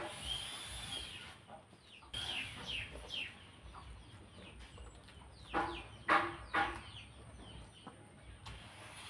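Chickens clucking: short calls in a quick group of three at the start and again about six seconds in, with a run of high, falling chirps a couple of seconds in.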